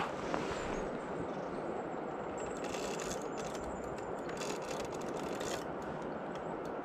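Steady rush of a fast river current, with a few short scraping sounds between about two and a half and five and a half seconds in.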